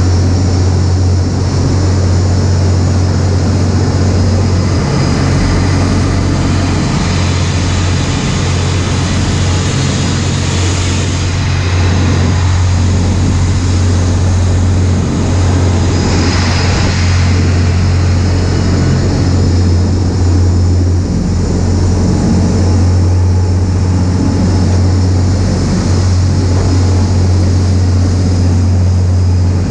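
Rescue vessel's engines droning steadily at high speed, under the rush of spray and wind across the deck. The rushing swells twice, about ten and sixteen seconds in.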